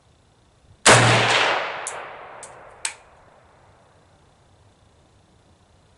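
A single shot from an M70 ZPAP AK-pattern rifle in 7.62x39mm, fired about a second in, with a long echoing tail. A few light, sharp clicks follow over the next two seconds.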